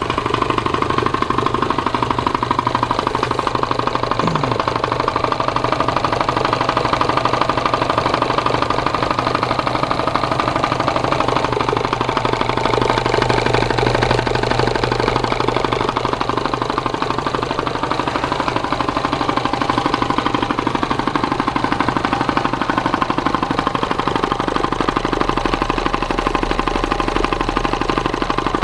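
1940s piston air compressor running steadily, a fast even chugging of its pump, fairly quiet for a compressor.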